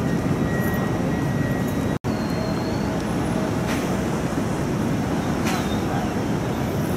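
Steady traffic noise of a busy city street, engines and tyres, with a few sharp knocks. The sound breaks off for an instant about two seconds in.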